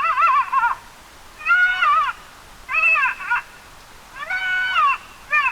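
Predator call sounding a repeated high-pitched wailing distress cry, used to call in bears. There are four drawn-out cries, each rising then falling, at an even pace, and a fifth begins near the end.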